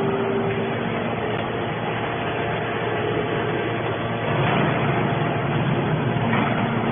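Steady mechanical running noise from heavy machinery, with a few faint held tones, swelling slightly about four and a half seconds in and again near the end.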